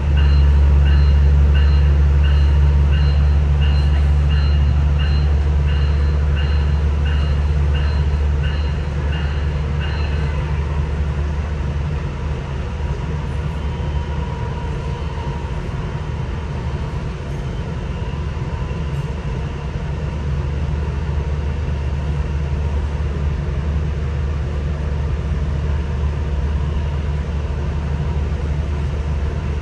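Nippon Sharyo diesel multiple unit running along the line, heard from inside the passenger car: a steady low diesel drone with track noise. The drone steps up sharply at the start and eases a little after about ten seconds. A high ringing repeats about twice a second over the first ten seconds, then fades out.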